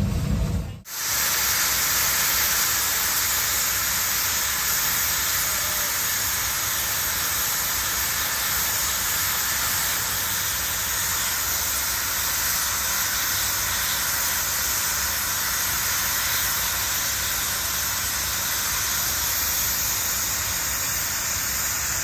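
Steam blowing off from the boiler of the Holt No. 111 steam traction engine: a loud, steady high hiss that starts about a second in and holds without a break.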